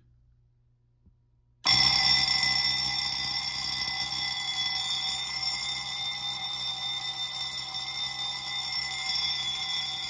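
Simplex 2901-9723 six-inch fire alarm bell starting suddenly about two seconds in and ringing continuously: the panel sounding a fire alarm on a continuous (uncoded) signal after the manual pull station is pulled.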